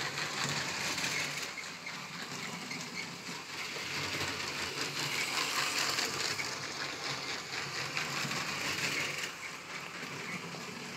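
Motorised Lego train running along plastic track, a steady mechanical noise that grows louder as it passes close about halfway through, then eases off.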